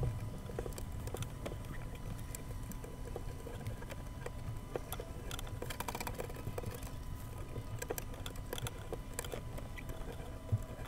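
Scattered small clicks and taps of hands handling and fitting the roof panel of a wooden dolls house, over a steady low hum.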